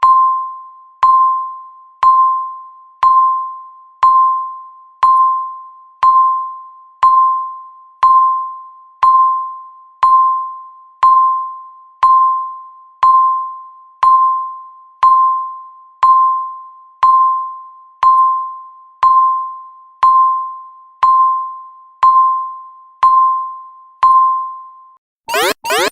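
Countdown timer beep: a single high electronic ding struck once a second, each fading quickly, counting down the final seconds. Near the end the count reaches zero and a loud alarm of rapid, rising sweeping tones starts, pulsing several times a second.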